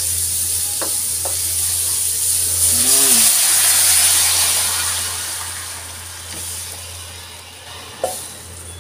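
Onion and garlic sizzling in hot margarine in a wok; about three seconds in, pressure-cooked beef and its broth are tipped in from a metal pot and the sizzle swells to a loud hiss, then dies down as the pan cools. A few light clicks of the wooden spatula and pot, and one sharp knock near the end.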